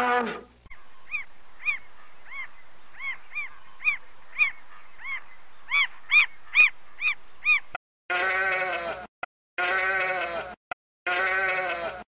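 Opens with the tail of a deeper animal call, then a bird calls over and over, short arched notes about two a second growing louder: a buff-necked ibis. From about 8 s a sheep bleats three times, each bleat about a second long.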